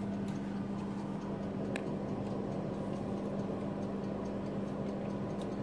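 Steady low electrical hum of a kitchen appliance, with a faint click about two seconds in and another near the end.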